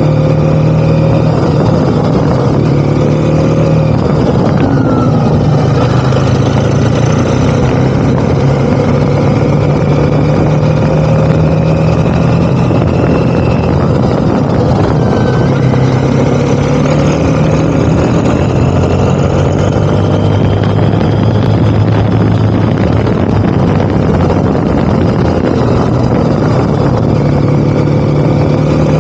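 Motorcycle engine running under way on a road, its note climbing slowly and dropping back several times as the throttle and gears change, over a steady rush of wind and road noise.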